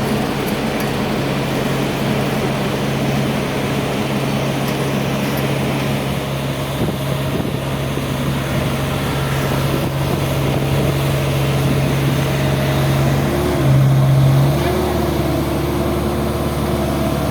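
Heavy diesel engine of road-building machinery running steadily, its note rising briefly about thirteen seconds in before settling again.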